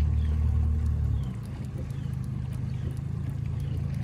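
Outboard motor running at slow trolling speed, a steady low hum that gets quieter a little over a second in.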